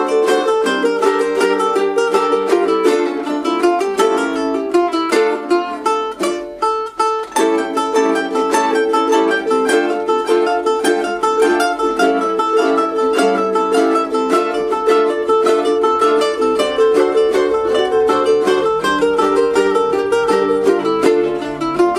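An ensemble of several ukuleles strumming and picking an instrumental tune together, with a brief break about six seconds in before the playing picks up again.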